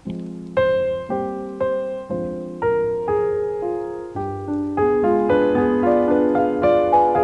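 Background piano music: a gentle melody of single struck notes, about two a second, that comes quicker and fuller from about five seconds in.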